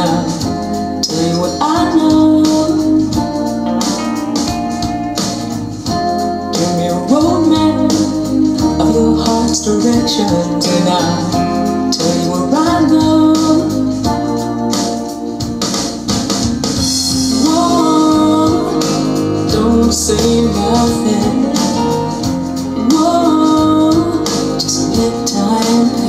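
A recorded song played back through a pair of home-built loudspeakers: sustained organ-like chords over a stepping bass line, with a melodic line above.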